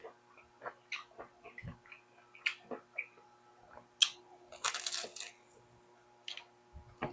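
Close-up eating sounds: a person biting and chewing food, with scattered short crunches and mouth clicks. About four seconds in there is a sharp click, followed by a half-second crunch.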